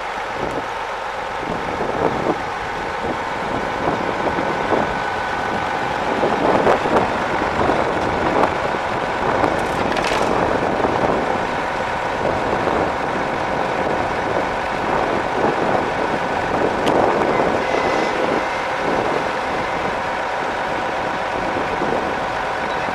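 A 1973 Case 1370 tractor's A504DT six-cylinder turbo diesel engine running steadily.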